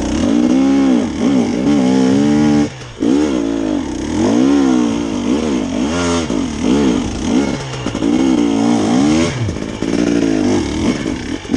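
Dirt bike engine revving up and down in repeated bursts, about one a second, as the bike is worked up a steep, loose slope. The sound drops out briefly a little under three seconds in.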